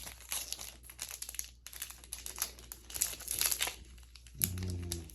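Foil booster-pack wrapper crinkling and being torn open by hand, in irregular crackly strokes.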